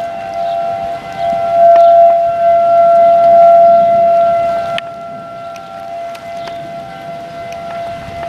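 Outdoor tornado warning siren sounding a steady wail on one held pitch. It swells louder for a few seconds, then drops off sharply about five seconds in as the sound fades away.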